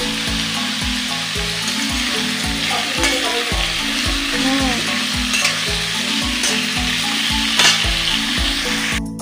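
Vegetable pieces (potato, brinjal, ridge gourd) sizzling in hot oil in a metal kadai while a flat metal spatula stirs and turns them, scraping and knocking against the pan. One knock, about three quarters of the way through, is louder than the others.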